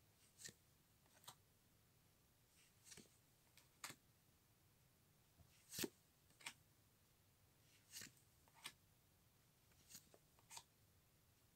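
Faint short clicks and swishes of sleeved Yu-Gi-Oh! trading cards being slid off the front of a stack one at a time, about a dozen in irregular succession, the loudest about halfway through.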